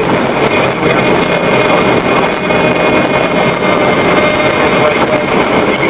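Steady running noise of a moving vehicle, an engine hum mixed with rushing wind.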